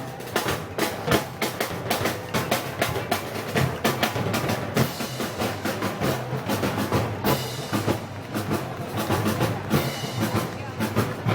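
Festival street band music led by dense snare and bass drum percussion, with crowd voices mixed in.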